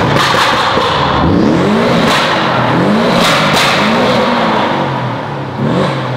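Porsche 718 Boxster GTS 2.5-litre turbocharged flat-four, fitted with a modified exhaust and an ECU tune, revved repeatedly in neutral: about six quick blips, each rising and falling, with sharp exhaust pops and crackles on some of the lifts.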